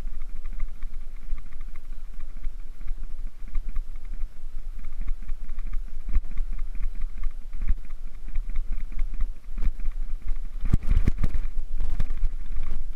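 Van Staal 200 spinning reel being cranked on a pencil-popper retrieve, a fine rapid ticking, over a steady low rumble. Scattered knocks come through, gathering into a loud cluster about eleven seconds in.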